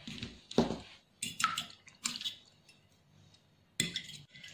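A few scattered taps and wet squishes of a spoon and fork in a dish of raw eggs, then a fork starting to stir the eggs near the end.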